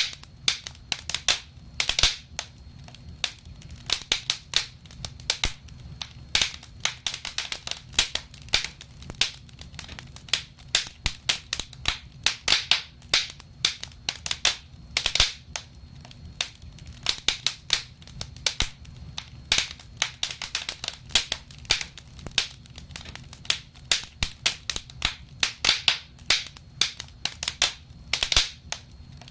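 Wood fire in a fireplace crackling, with irregular sharp pops and snaps, some single and some in quick clusters, over a faint low steady rumble.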